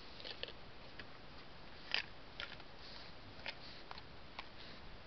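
Doe deer crunching apples: scattered crisp crunches and clicks, the loudest about two seconds in, over a steady faint hiss.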